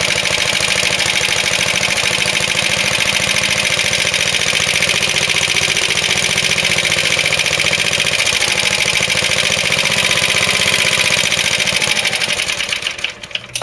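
Suffolk Iron Foundry 75G14 single-cylinder four-stroke side-valve petrol engine on a Suffolk Colt cylinder mower, running steadily through a replacement exhaust. Near the end it slows, the last few firing strokes spread out, and it stops.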